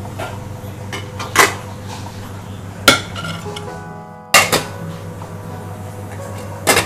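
Aluminium idli plates and a steamer pot clanking: a few separate sharp metal knocks as the plate stand is set into the pot and the lid goes on. Background music plays under them.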